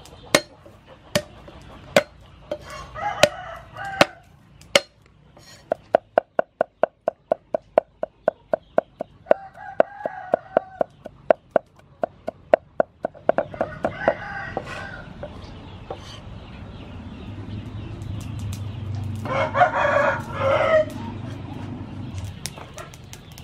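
Steel cleaver chopping garlic on a wooden chopping block: scattered chops, then a fast even run of about five chops a second. Chickens cluck between the chops, and a rooster crows near the end, the loudest sound.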